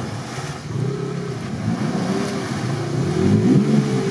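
Toyota FJ Cruiser's engine revving hard, its pitch rising and falling repeatedly, as it pulls the vehicle under heavy load up out of deep water, with water churning around the wheels. The revs climb louder about three seconds in.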